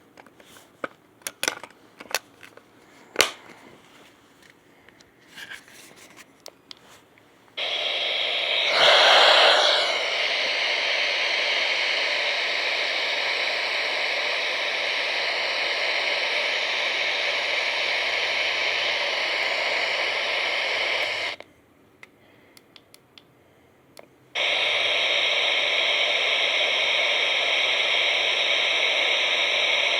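Several sharp clicks of handling, then an Eton ESP2100 radio's speaker hissing with loud steady static, not tuned to a station. The static cuts off suddenly about two-thirds of the way in and comes back about three seconds later.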